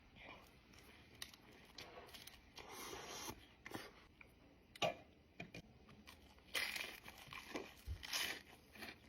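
Close-up crunching of crispy fried flautas being bitten and chewed, in irregular loud crunches with quieter chewing between.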